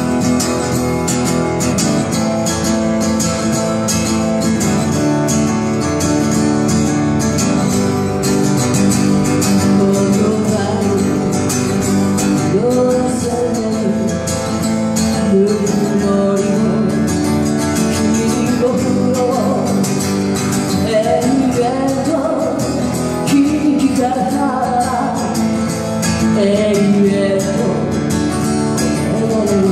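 A woman singing to her own strummed acoustic guitar, amplified through a PA; the opening seconds are mostly guitar, with the voice carrying the melody from about ten seconds in.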